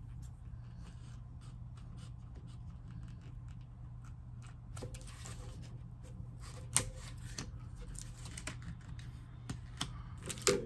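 Scissors snipping and packaging rustling as a sticker pad is cut open: a run of small, irregular clicks and rustles, with a sharper click about seven seconds in.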